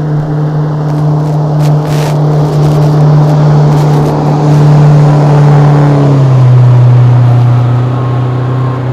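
Motorboat engine running at a steady pitch, stepping down to a lower pitch about six seconds in.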